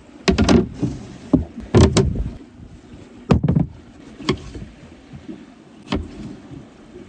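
Several sharp knocks and clatters at irregular spacing, some in quick pairs, the loudest in the first two seconds.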